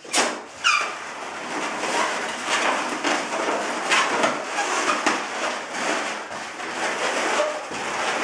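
Latex twisting balloons squeaking and rubbing against each other as they are twisted and squeezed together, with a sharp squeak sliding down in pitch just under a second in.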